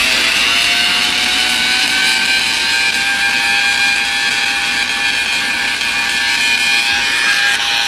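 Tesla coil's 16-point rotary spark gap firing: a loud, steady buzz with a crackling hiss. It rises slightly in pitch in the first second as the gap motor comes up to speed, then holds steady.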